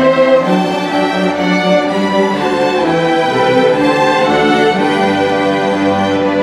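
Student string orchestra of violins and cellos playing, bowing held notes that flow one into the next at a steady level.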